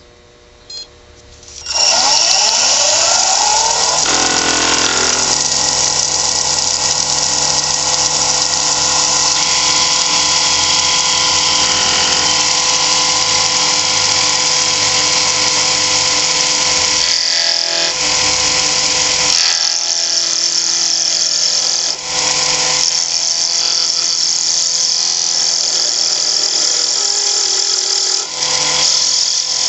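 Wood lathe switched on about two seconds in, its motor whine rising as it spins up, then a steady cutting noise over the motor hum as a 3/8-inch beading and parting tool cuts a small hard maple blank, turning the square stock round. The cut eases off briefly a few times.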